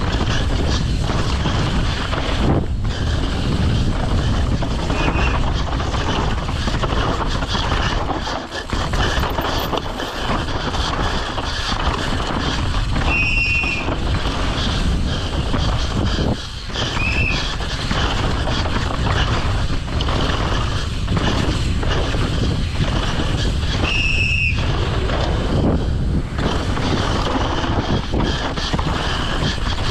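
Downhill mountain bike being ridden hard on a rough trail: steady wind and tyre rumble with constant rattling and knocks, and a few brief high squeals from the disc brakes.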